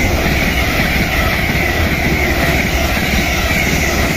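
Two coupled Hitachi Class 385 electric multiple units passing close by at speed: a loud, steady rush of wheels on rails over a low rumble.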